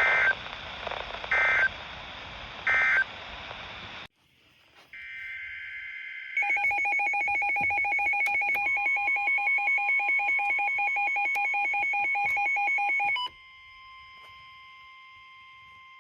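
Emergency Alert System broadcast signalling. First come three short warbling digital data bursts about a second and a half apart over radio hiss: the end-of-message code closing the tornado warning. After a brief drop to quiet there is a longer data burst, then a rapidly pulsing two-tone alert beep with a steady tone joining in. About three seconds before the end the beeping stops and the steady tone continues, quieter.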